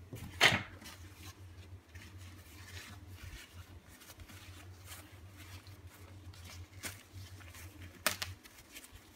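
A white paper sheet handled and rustled by hand, with a sharp knock about half a second in, the loudest sound, and another shortly before the end, over a steady low hum.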